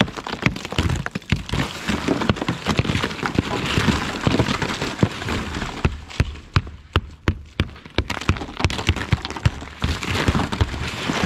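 Rubber mallet striking a thick coat of freezing-rain ice on a truck's windshield and roof: a rapid, irregular run of sharp knocks with the ice cracking and crackling as it breaks up.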